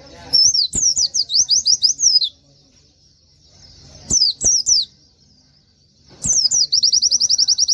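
Pleci (white-eye) singing in three bursts of quick, high, falling notes, the last running into a fast, even trill.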